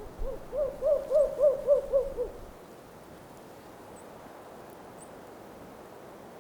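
Owl hooting: a quick, even series of about seven short notes, roughly three a second, ending a little over two seconds in. Under it and after it, a steady low hiss of wind.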